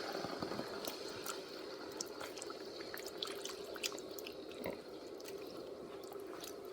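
Chickpea curry in a hot pan, faintly sputtering and bubbling: a low steady hiss with scattered small pops and clicks.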